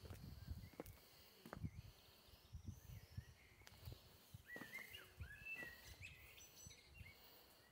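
Faint footsteps of someone walking, with a few short bird chirps about halfway through.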